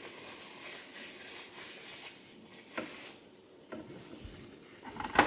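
Quiet room with small eating noises at a dinner table: a few soft clicks and taps of chopsticks and dishes, and one sharper click near the end.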